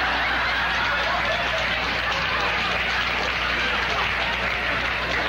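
Studio audience laughing, a loud, steady wave of crowd laughter with no break.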